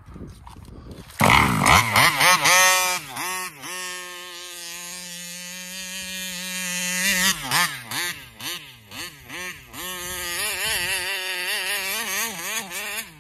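Taylor 35cc reed-valve two-stroke engine in a large-scale RC car, revving up sharply about a second in and rising and falling in pitch. It holds a steady pitch for a few seconds, then wavers up and down quickly near the end: the flutter that the owner blames on something wrong with the carburetor.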